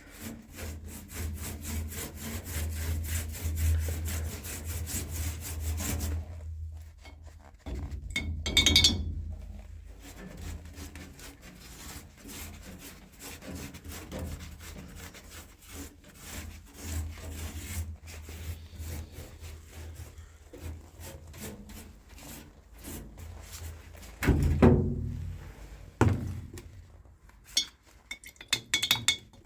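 Fast back-and-forth scraping strokes against a car's steel floor pan as old sound-deadening, softened with white spirit, is worked off by hand. The strokes are rapid and steady for about six seconds, then turn quieter and patchier, with a couple of knocks, one about nine seconds in and one near the end.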